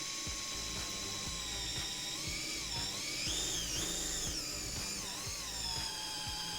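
A cordless drill's motor whines, its pitch rising and falling several times as the speed changes, over a regular ticking of about three a second.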